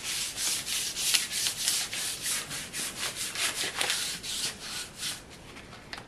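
Sandpaper rubbed by hand back and forth over a flat panel in quick, steady strokes, dying away about five and a half seconds in.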